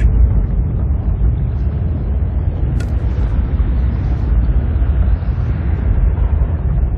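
Deep, steady rumbling drone of a spaceship interior, film sound design, with one brief tick about three seconds in.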